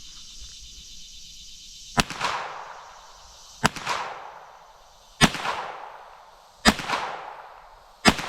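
GSG 1911 .22 LR pistol firing 40-grain Remington Golden Bullet rounds: five shots, about one every second and a half, each sharp crack followed by a short echoing tail.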